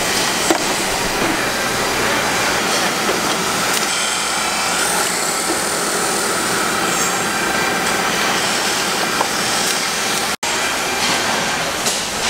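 Steady din of woodworking machinery running on a drumstick production line. It is briefly cut off about ten seconds in.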